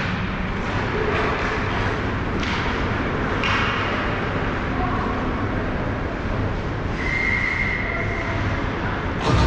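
Ice hockey rink ambience: a steady low rumble with skates scraping the ice and a couple of sharper clacks or scrapes about two and a half and three and a half seconds in.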